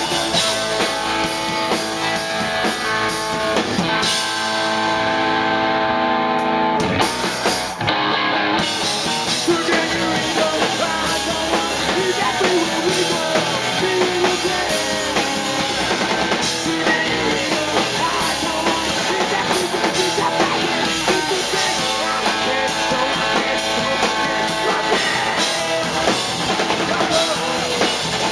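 Punk rock band playing live: electric guitars and drum kit with sung vocals. A chord rings out held from about four seconds in, and the full band crashes back in around eight seconds.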